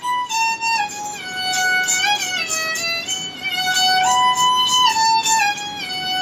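Sarangi, a bowed Rajasthani folk fiddle, playing a solo melody: a single line of held notes that move in steps, with short slides between them.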